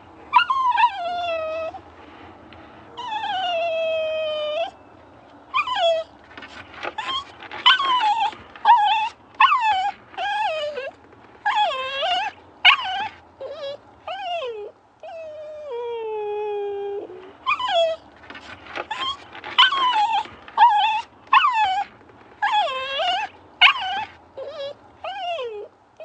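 A dog whining: a long run of high whimpers that mostly fall in pitch. Many are short and come in quick succession, broken by a few longer drawn-out whines near the start and again about two-thirds of the way through.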